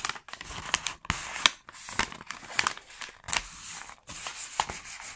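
White paper rustling and crinkling as it is folded, torn and crumpled by hand, with many irregular sharp crackles, used to wipe up spilled nail polish.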